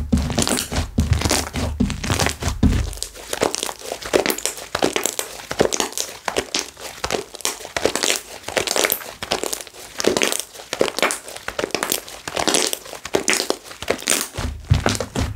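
Slime being squished and pressed by hand: a dense, irregular run of small crackles and pops as air bubbles in the slime burst. Low thuds of the slime being pressed come in the first few seconds and again near the end.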